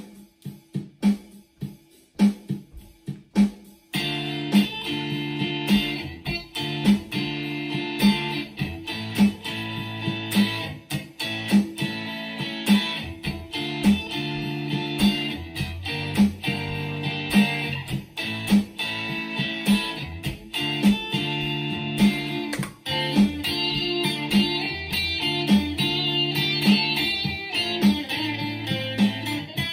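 Instrumental worship music led by a Stratocaster-style electric guitar played through an amp. For the first four seconds it plays sparse, evenly spaced notes, then the full part comes in with a steady beat.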